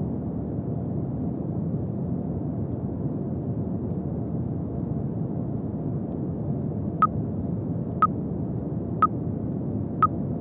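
Steady low rushing noise with no tune in it. About seven seconds in, four short electronic timer beeps follow one a second: the countdown of the last seconds of a rest break.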